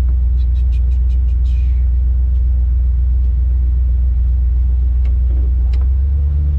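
A competition 4x4 winch truck's engine idling steadily, heard from inside the cab as a loud low rumble. A quick run of about six light ticks and a short hiss comes about half a second in, and a single tick near the end.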